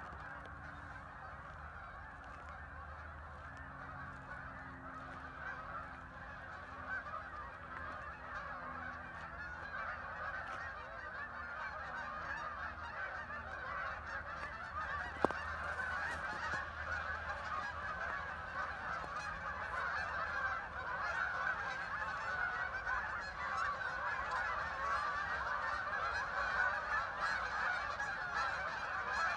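A huge flock of waterfowl calling all at once, a dense continuous chorus that grows steadily louder. A single sharp click about halfway through.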